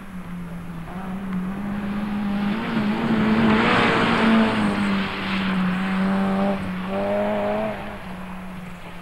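Opel Kadett rally car approaching at speed, its engine running hard and growing louder to a peak as it passes close about four seconds in. The engine note then carries on at high revs and falls away sharply just before the end as the car drives off.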